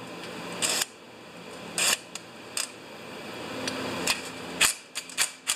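Black+Decker cordless impact driver run in several short bursts on a small engine carburetor's screw, with a quick run of sharp metal clicks near the end.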